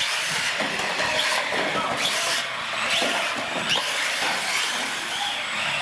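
Radio-controlled trucks racing on a concrete floor: a steady mix of motor whine and tyre noise, with a few short rising whines as the trucks speed up.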